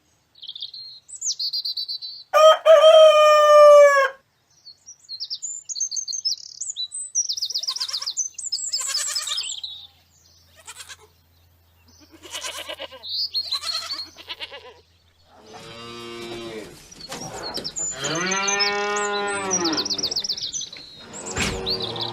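Chickens calling: many short high peeps and chirps, a loud rooster crow a couple of seconds in, and longer drawn-out crowing calls near the end.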